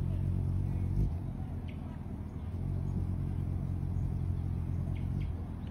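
Hummingbird's wings humming steadily as it hovers and feeds at a hand-held feeder, with a short knock about a second in.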